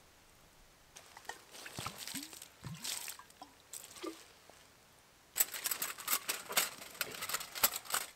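A few scattered knocks and scrapes of camp gear being handled. About halfway through comes a dense crackling rustle of dry fallen leaves, moved about by hands and knees on the forest floor.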